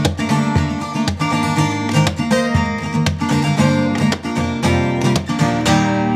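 Acoustic guitar played fingerstyle: a steady stream of plucked melody notes over a bass line, punctuated by sharp strummed strokes.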